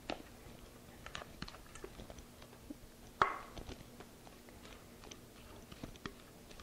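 Silicone spatula scraping thick brownie batter out of a glass bowl into a metal baking pan: faint, wet squishing and scraping with scattered small taps, and one sharper knock about three seconds in.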